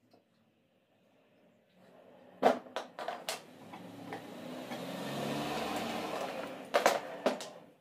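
Sharp metal clinks of bicycle fork parts and Allen keys being handled on a workbench: a few about two and a half seconds in and a cluster near the end. Between them a steady vehicle-like rumble swells and then fades, as of a vehicle going by.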